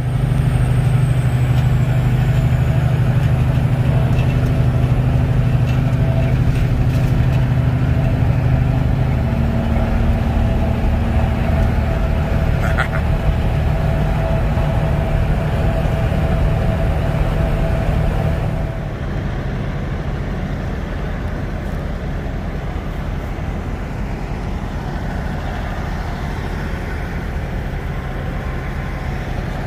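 Heavy truck diesel engine running steadily at close range, its low note shifting about ten seconds in. After an abrupt change about 19 s in, a quieter, even vehicle rumble follows.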